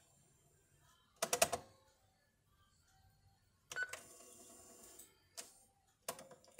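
Panasonic KX-T4311 answering machine's buttons and microcassette mechanism working: a quick clatter of clicks about a second in, then a click and about a second of motor whir a little before the middle, with single clicks near the end.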